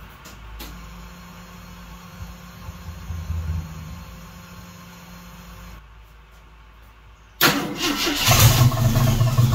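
1976 AMC Gremlin engine cranking over on the starter for about three seconds, starting suddenly near the end, without catching.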